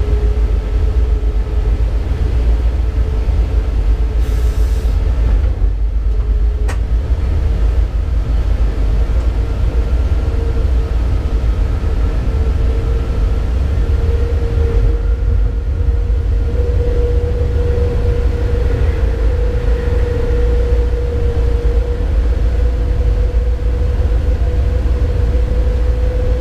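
Cab of a class 189 (Siemens ES64F4) electric locomotive under way: a steady low rumble with a whine that creeps slowly up in pitch. One sharp click about seven seconds in.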